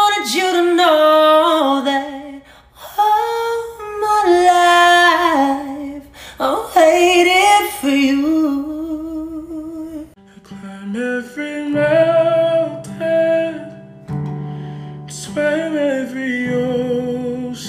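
A male voice sings a slow melody solo and unaccompanied, with long held and sliding notes. About ten seconds in, a second male singer starts over a steady instrumental backing.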